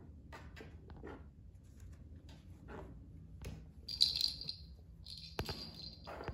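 Kittens playing in a pen: scattered light clicks, taps and scuffles, with two short bouts of rattling about four seconds in and again near the end, and one sharp knock between them.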